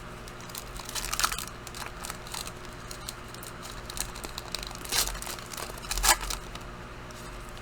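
Trading cards and a pack wrapper being handled: scattered rustles and crinkles, the loudest about five and six seconds in.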